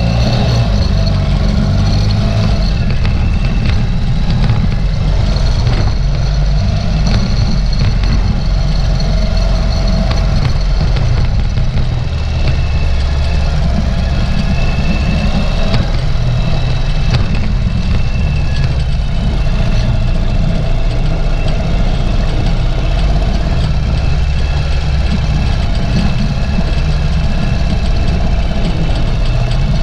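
Ural sidecar motorcycle's air-cooled boxer-twin engine running steadily while under way.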